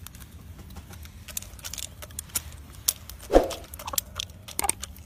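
Shamo chickens moving about on bare ground: scattered light ticks and scuffs, with one short low cluck a little past halfway.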